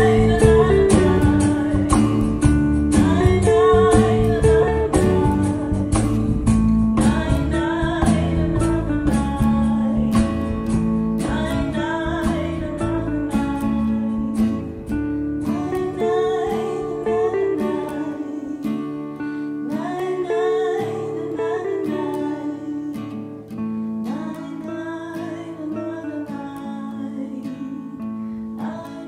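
Acoustic band playing: several acoustic guitars strummed and picked over cajon beats. About two-thirds of the way through, the low end falls away and the playing grows softer.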